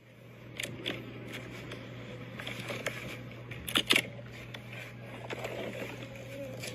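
Wooden beehive parts knocked and scraped as the hive is opened by hand, with scattered sharp knocks, the loudest a pair about four seconds in, over a steady low hum.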